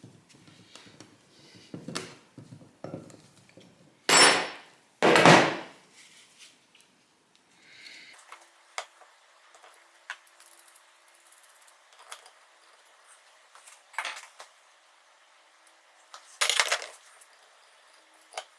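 Hand tools and metal parts clinking and knocking during workshop disassembly. There are two loud half-second bursts of noise about four and five seconds in and another near the end.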